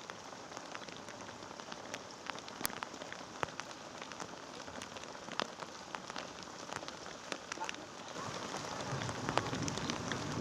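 Blizzard snow pattering steadily on a surface, a dense hiss with many scattered sharp ticks; it grows louder and rougher near the end.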